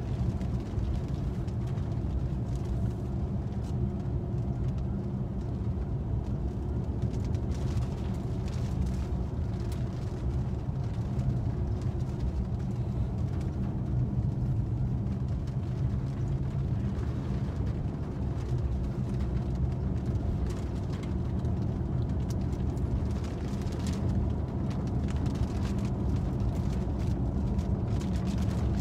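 Steady engine and road noise heard from inside the cabin of a moving car, low and unbroken throughout.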